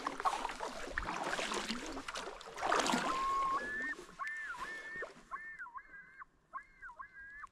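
Water sloshing and paddle noise around a small raft being moved across a lake, then, about three seconds in, a bird calling: a run of clear whistled notes in repeated rising-and-falling phrases, which cuts off abruptly.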